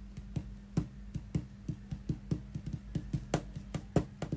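Fingers typing and tapping on a device: a run of irregular light clicks, several a second, over a steady low electrical hum.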